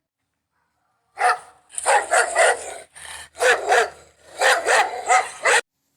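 Dog barking repeatedly, about ten harsh barks in quick bunches, starting about a second in.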